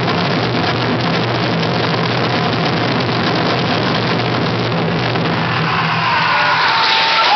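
Taiko drums played in a dense, continuous roll, heard as a harsh, distorted wash of sound. It thins out near the end as a high held tone comes in.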